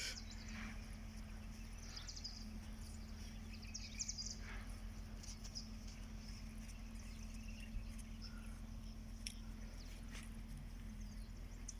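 Faint outdoor background: a steady low hum with scattered short, high chirps and a few light clicks.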